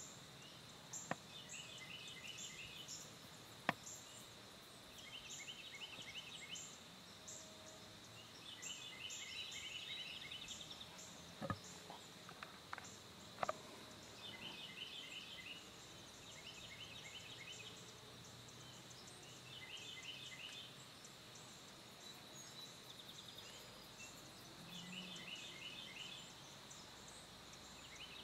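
Faint field ambience at dusk: short bursts of rapid high chirping recur every few seconds over a steady high hum and a fast, even ticking, with a few sharp clicks about a second in, near four seconds, and three more in the middle.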